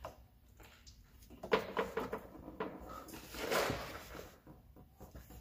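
Faint handling noise of hands working a plastic coolant-hose quick connector at a Tesla Model 3's battery pack: scattered clicks and rubs, with louder rustles about a second and a half in and again near three and a half seconds.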